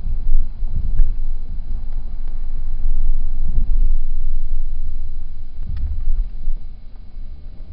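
Low road and wind rumble inside a moving Subaru's cabin, easing off near the end, with a faint click or two.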